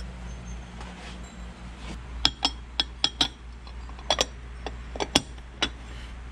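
Glass casserole lid clinking against its dish as it is set on and settled: about a dozen sharp clinks over three and a half seconds, starting about two seconds in, over a steady low hum.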